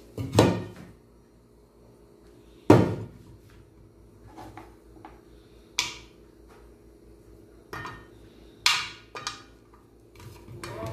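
Ginger slices dropped by hand into an empty aluminium pot, landing with short clinks and taps on the metal. There are two louder knocks in the first three seconds, then several lighter, sharper ones.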